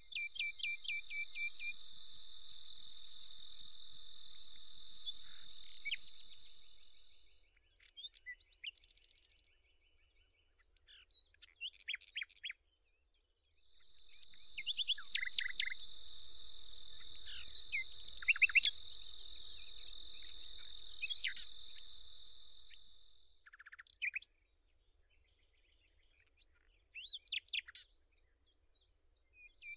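Summer outdoor ambience: an insect trilling in two long, steady, high-pitched spells of several seconds each, with short bird chirps scattered between and over them.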